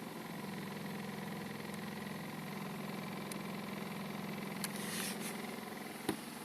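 Audi A1's 1.4 TSI petrol engine running with a steady low drone that sets in just after the start: the strange engine noise the owner is documenting. A few faint clicks and a single knock come near the end.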